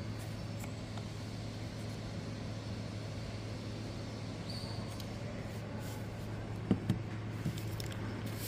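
Steady low background hum, with two faint knocks close together about two-thirds of the way through.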